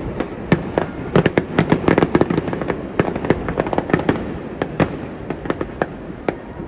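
Fireworks bursting: a rapid run of many sharp bangs and crackles, densest in the first half and thinning out near the end.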